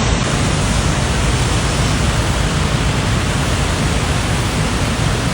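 Steady roar of rushing floodwater, an even noise without pitch or rhythm.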